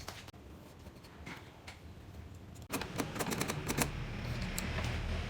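Scattered small clicks and taps that turn into a dense run of rapid clicks about three seconds in, over a steady low hum and a faint hiss.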